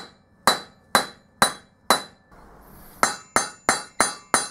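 Hammer blows on a steel rod set in the bore of a freshly cast aluminium faceplate: about ten sharp, ringing metallic strikes. Five come evenly about half a second apart, then after a short pause five come more quickly. He is trying to drive out a mandrel stuck fast in the casting.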